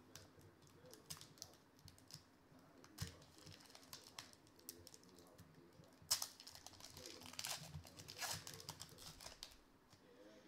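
A trading-card pack's plastic wrapper crackling and crinkling as fingers peel it open, in faint scattered clicks that grow louder and denser from about six seconds in.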